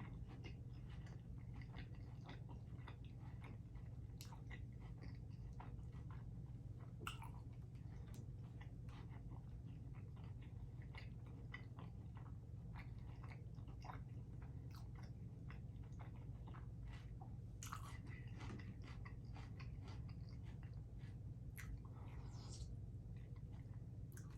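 A person eating close to the microphone: faint chewing and biting of a soft lamb sandwich in flatbread, with many small wet mouth clicks. A steady low hum runs underneath.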